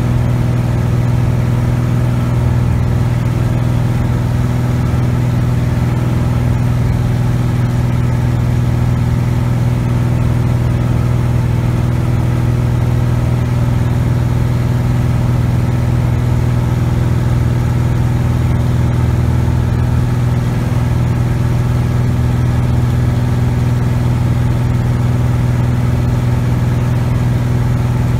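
Cessna 180 Skywagon's six-cylinder piston engine and propeller running steadily in flight, heard from inside the cabin as a loud, even drone with no change in pitch.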